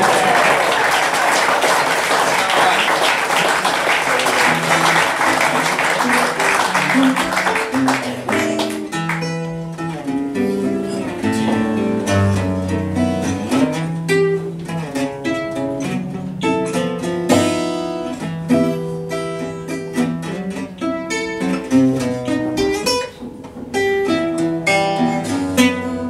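Gypsy jazz trio of two acoustic guitars and double bass playing a swing ballad: plucked guitar melody over walking double bass notes. The first eight seconds or so are covered by a dense noisy wash that fades as the melody comes through.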